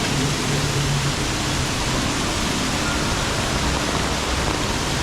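Heavy rain falling steadily, a dense even hiss, with a faint low hum underneath.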